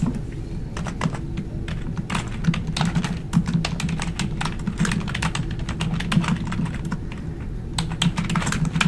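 Typing on a computer keyboard: a quick, uneven run of key clicks as a file name is entered.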